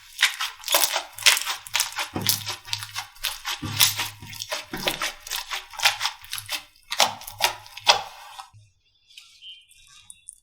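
Slime being squeezed and pressed by hand, giving rapid crackling and popping clicks. The clicks stop about a second and a half before the end, leaving only a few faint soft sounds.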